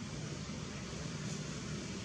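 Steady outdoor background noise: a low rumble with an even hiss over it, unchanging throughout.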